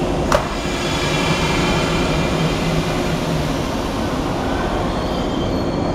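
115 series electric train pulling out of the station: a steady running hum with faint whining tones, after a single sharp clunk just under half a second in.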